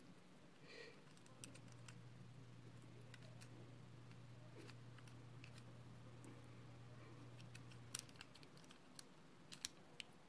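Faint clicks and taps of a small plastic action camera being handled and turned in the hands, with a faint steady low hum that starts about a second and a half in and stops near the end.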